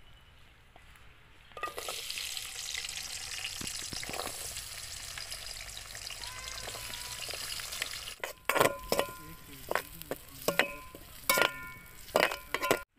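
Chopped shallots dropped into hot oil with mustard seeds in an aluminium pan, sizzling steadily from about a second and a half in. From about eight seconds a metal spoon strikes and scrapes the pan in ringing clanks as the onions are stirred.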